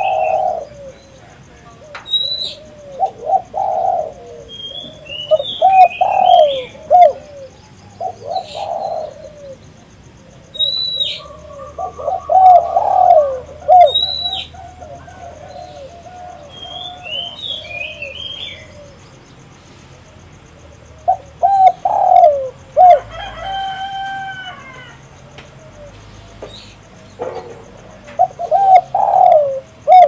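Spotted dove cooing in repeated phrases every few seconds, with a long pause midway. Smaller birds chirp and whistle high above it.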